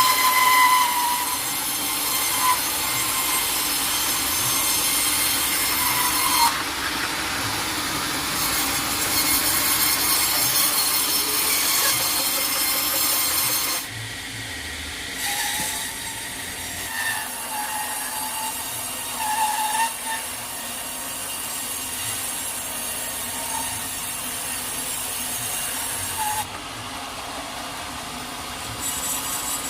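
Sawmill blade cutting through a teak log: a steady, high-pitched running saw noise with brief squeals of the blade in the wood. The sound changes abruptly about a third of the way through, at the middle and near the end.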